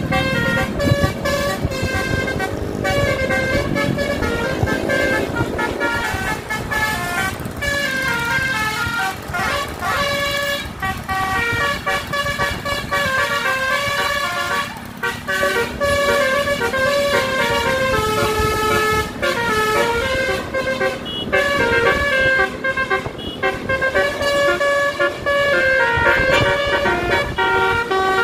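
Tour bus basuri (telolet) air horn playing a melody of stepped notes, several horn tones sounding together, over engine rumble.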